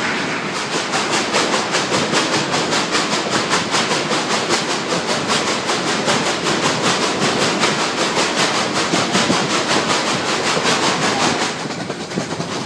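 The Durango & Silverton narrow gauge steam train running, heard from a passenger car: a loud, steady rush with a fast, even beat of several strokes a second. Near the end the beat stops and the sound drops to a quieter rumble.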